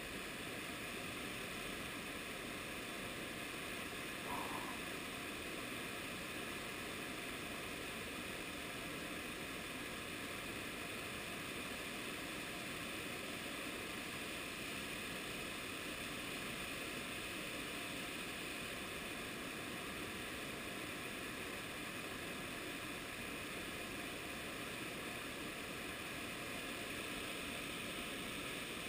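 Whitewater river rapids rushing over rocks below a bridge: a steady, even noise of fast-flowing water.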